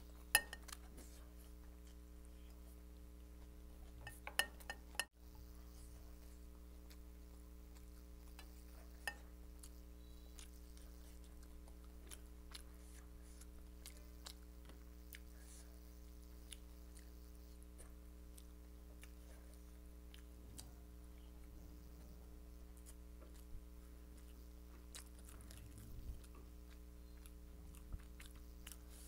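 Close-miked eating of Schezwan fried rice by hand: soft chewing with sharp mouth clicks, and a few light clinks of fingers and food on a steel plate. The clicks are loudest near the start and around four seconds in, then sparse, over a steady low hum.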